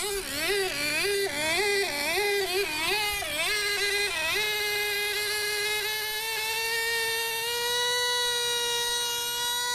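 High-pitched buzz of a small model aircraft engine, its pitch swinging up and down about twice a second for the first four seconds, then holding steady and edging slightly higher.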